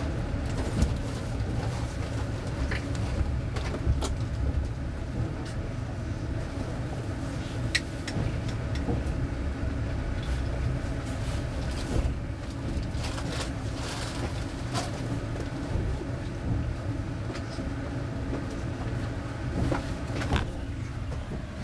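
Long-distance passenger train carriage running on the rails, heard from inside the compartment: a steady low rumble with scattered sharp clicks and knocks.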